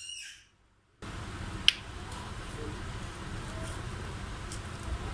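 A brief high chirping call at the start, then a steady low room hum with a single sharp click about a second and a half in: a knife cutting through soft pudding and tapping the wooden cutting board, with a few fainter ticks after it.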